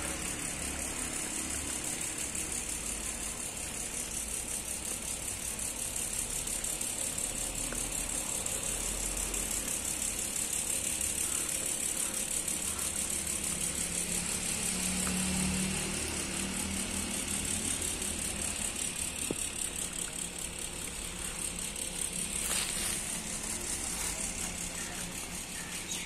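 Cicadas buzzing in a steady, high, rapidly pulsing drone, over a low rumble of road traffic.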